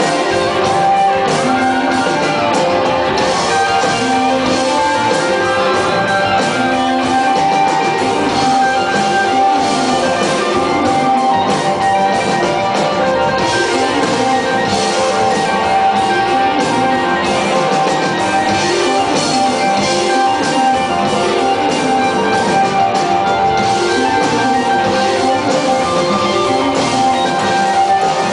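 Rock band playing live: electric guitars, bass and a drum kit, loud and steady, with one high note held through much of it.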